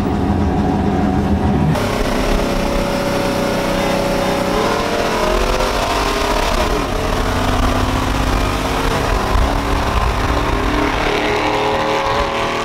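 LS1-swapped Chevrolet Silverado's 5.7 V8 accelerating hard during a roll race, heard from inside the cab with heavy wind and road noise. Its note rises several times, and the wind noise jumps sharply about two seconds in.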